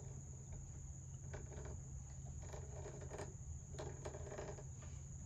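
Faint scrapes and creaks from a hand tap being turned by a tap wrench, starting 1/4-20 threads in a drilled brass pommel nut, heard over a steady high-pitched whine and a low hum.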